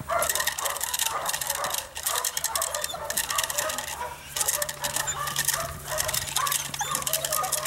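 Belgian Malinois barking repeatedly during bite training, over a steady rapid crackle of clicks.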